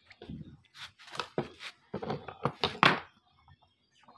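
A run of about eight sharp metal knocks and thunks as a new bushing is knocked into the eye of a Yamaha Vixion's rear suspension link and the link is handled on a concrete floor, the loudest knock near the end of the run.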